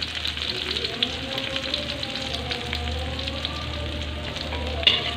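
Sliced shallots and garlic sizzling in hot oil in a wok, a steady crackle of frying, sautéed until fragrant. A sharp scrape of the spatula comes near the end.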